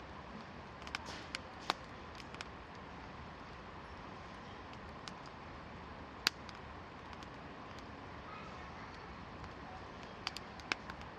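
Wood campfire crackling: irregular sharp pops over a steady hiss, a few in the first couple of seconds, one loud pop about six seconds in, and another cluster near the end.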